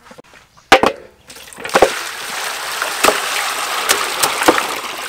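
Water poured from a bucket into an aluminium basin of raw chicken drumsticks, running and splashing steadily from about a second and a half in. Sharp knocks sound as chicken pieces drop into the metal basin, two of them just under a second in and several more during the pour.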